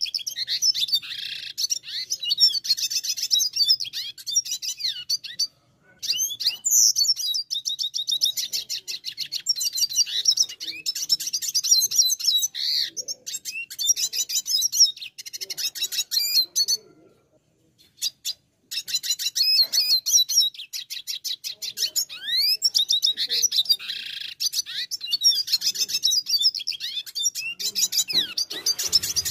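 Red siskin singing a long, fast twittering song of rapid trills and chirps, breaking off briefly about five seconds in and again around seventeen seconds.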